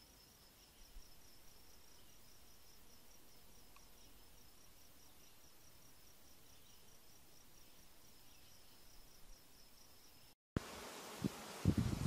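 An insect chirping steadily, a high-pitched pulsed trill of about five or six pulses a second, over a soft hiss. Near the end the sound cuts out for a moment, then comes back as a louder outdoor hiss with a few low thumps.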